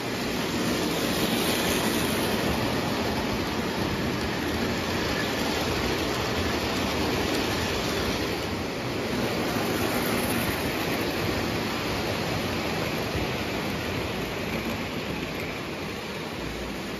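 Lionel O gauge train rolling past on tubular three-rail track: a steady rumble of the cars' wheels on the metal rails.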